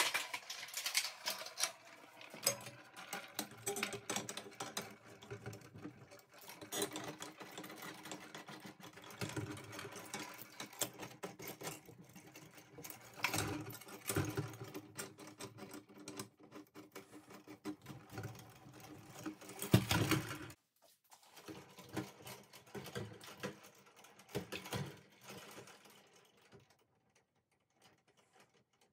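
Steel chain links clinking and rattling against black iron pipe fittings as the chains are handled and hooked onto the pipe frame, a dense clatter of small metal clicks. After a short break about two-thirds of the way through, the clicks become sparse and die away near the end.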